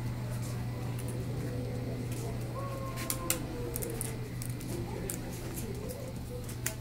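A husky's claws clicking on a hard tile floor as it walks, a scattering of sharp ticks with a louder pair about three seconds in, over a steady low hum and faint background voices.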